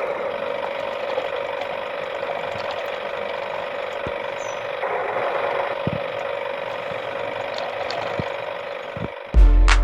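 Small electric motor and plastic gearbox of a toy tractor whirring steadily, with a few faint clicks.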